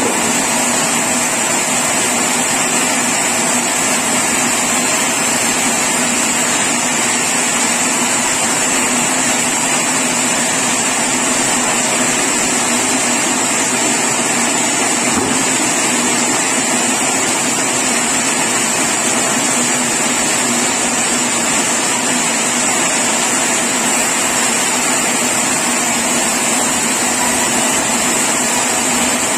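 Sawmill machinery running steadily and loudly, with a constant high whine over a low hum that does not change.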